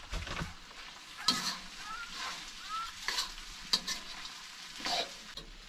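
Rabbit and green chilies stir-frying in a wok: a steady sizzle, with the utensil scraping and clattering against the wok a handful of times and giving a few short squeaks.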